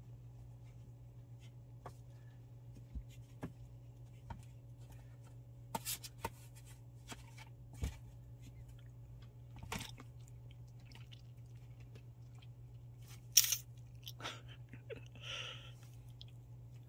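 A puppy biting and tugging at a plush toy hung on a string inside a cardboard box: scattered soft knocks, scrapes and chewing sounds, with one sharp knock about thirteen seconds in.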